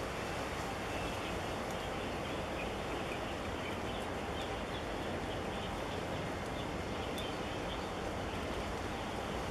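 Steady outdoor rushing noise with no distinct engine note, and a few faint high chirps around the middle.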